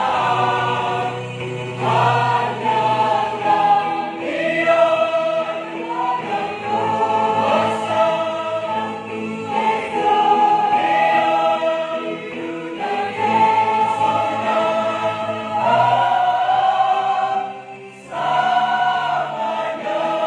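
Mixed-voice church choir, men and women, singing a hymn in parts: held chords moving from phrase to phrase, with a short break for breath about eighteen seconds in.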